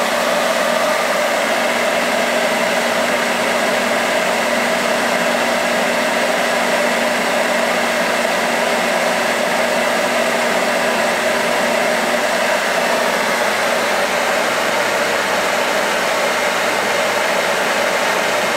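Hand-held hair dryer running steadily, blowing hot air into a crumpled hollow EVA plastic goose decoy to warm and soften it so it expands back into shape; an even rush of air with a steady motor hum.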